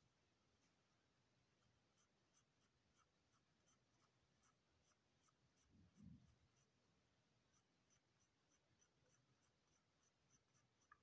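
Faint scratching of a graphite pencil shading on drawing paper: short back-and-forth strokes, a few a second, sparse at first and then steady. One soft low thump about halfway through.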